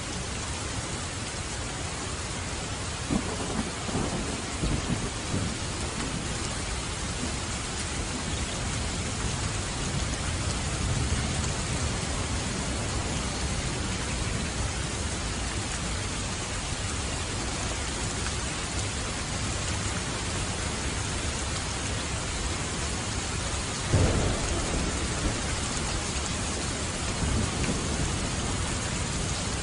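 Steady heavy rain falling, with thunder rumbling low a few seconds in and a sharper thunderclap followed by a rolling rumble late on.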